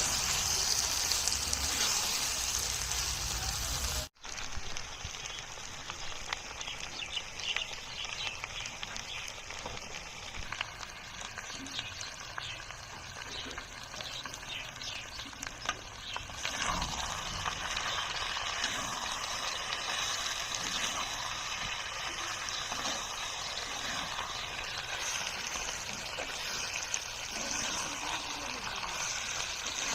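Potato curry frying in hot oil in a pan, a steady sizzle. The sound drops out for an instant about four seconds in.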